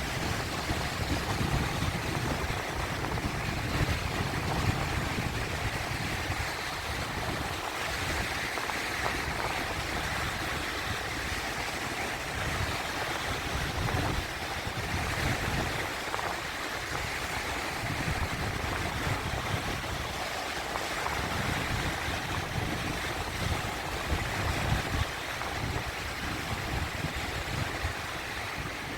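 Sea waves breaking and washing: a steady rushing wash with uneven low rumbling surges that swell and fade every few seconds.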